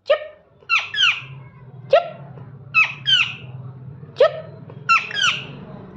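Parrot giving short, sharp calls, about nine in six seconds, several coming in quick pairs, over a steady low hum.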